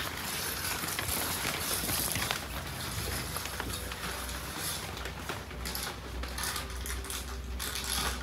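Amplified scratching and rubbing of textured surfaces, with many small irregular clicks and rattles: an ASMR soundscape of magnified household textures.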